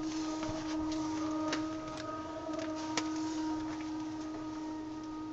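A steady, low droning hum with fainter higher tones wavering above it, and a few scattered clicks. It is the unexplained trumpet-like 'strange sound' heard through a closed window.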